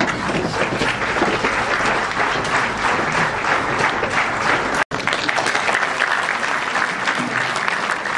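Crowd applauding, a dense, steady clapping. It breaks off for an instant about five seconds in, where the recording is cut, then resumes.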